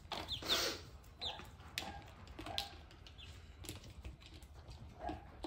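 Young chickens peeping a few times in short, high, falling chirps, with scattered light clicks and taps of beaks pecking.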